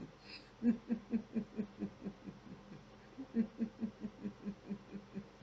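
A woman's low, rhythmic laugh, short pulses about four or five a second, in two runs with a short break in the middle.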